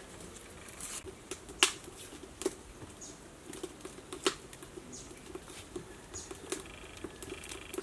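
Irregular small clicks and taps of a knife working through vegetables held in the hand, with a few sharper snaps among them.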